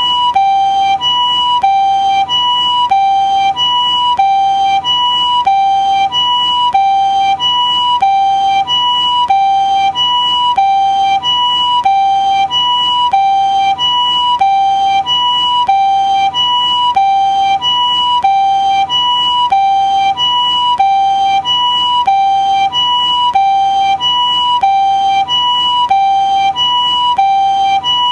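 Japanese ambulance siren giving its two-tone "pee-po" call: a higher and a lower tone alternate steadily, about one pair a second.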